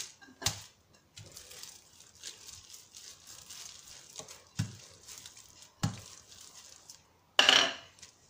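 Wooden rolling pin working dough between two sheets of plastic wrap: a few light knocks and faint rustling of the plastic, with a louder crinkle near the end.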